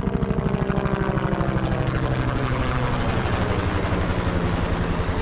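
Steady drone of an aircraft with a fast regular pulsing beat, like a rotor or propeller.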